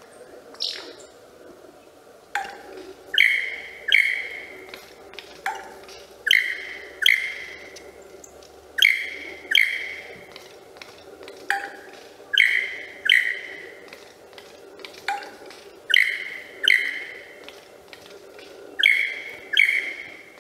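Superb lyrebird giving its display song: loud, ringing pitched calls mostly in pairs, a pair about every three seconds, several of them led by a sharp note that sweeps quickly downward.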